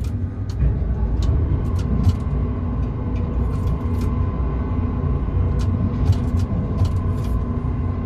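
Tower crane in operation heard from inside its cab: a steady low rumble, with a faint steady whine coming in about a second in and scattered light clicks, as the hoist lowers the load.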